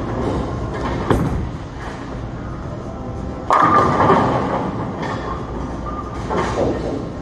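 A 900 Global Honey Badger Revival bowling ball rolls down a wooden lane with a low rumble. About three and a half seconds in it crashes into the pins with a sudden loud clatter that dies away over a second or two, followed by smaller clatters from the pin deck.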